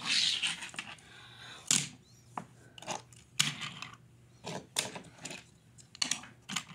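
Hot Wheels die-cast toy cars being set down on a wooden floor: a string of sharp clicks and light clatters, with a short burst of rustling at the start.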